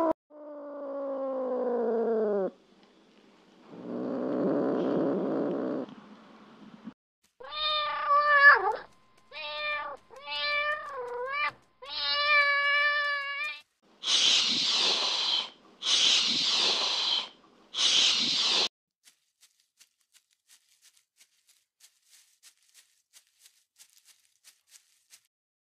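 A cat meowing and hissing: a long falling meow, a rough low growl-like sound, a run of four short meows, then three hisses in a row. After that, only faint ticks about twice a second.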